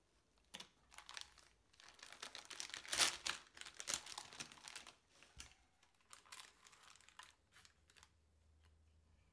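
Plastic packaging of flour tortilla wraps crinkling as it is handled and opened, loudest about three to four seconds in, then a few scattered crackles.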